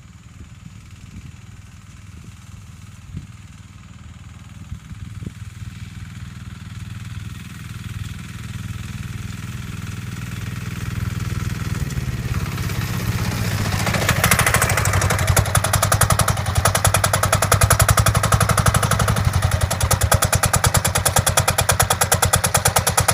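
Diesel go-kart engine approaching at top speed, growing steadily louder, then close and loud from about halfway on, with a rapid, even chugging of its firing strokes.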